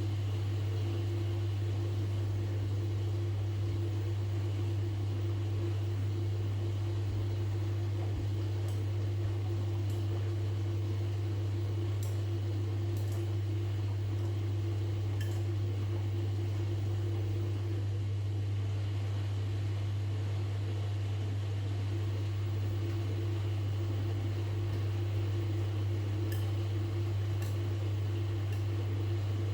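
Washing machine running with a steady low hum that holds level throughout, with a few faint ticks over it.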